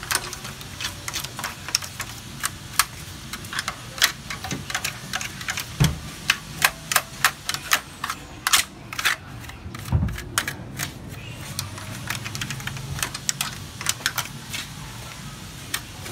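A toothbrush scrubbing and flicking over a laser printer's sheet-metal side frame and gear motors, making irregular sharp clicks and taps several times a second. There are a couple of dull knocks about six and ten seconds in.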